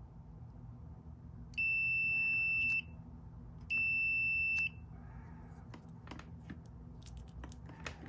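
Digital multimeter's continuity beeper sounding twice, each a steady high beep about a second long, as the brake light switch's plunger is pushed in. Each beep means pins 3 and 4 of the four-terminal switch have continuity, the state of this contact when the brake pedal is released.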